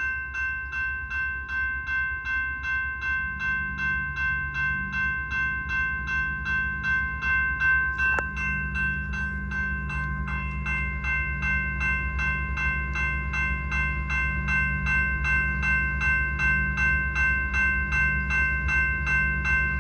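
Railroad grade-crossing bell ringing steadily at about three strokes a second, over the low, steady running of a diesel locomotive.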